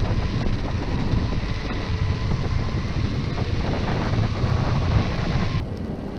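Wind buffeting the microphone during an electric skateboard ride, over the rolling noise of pneumatic tyres and a faint steady high whine. The hiss drops off suddenly near the end.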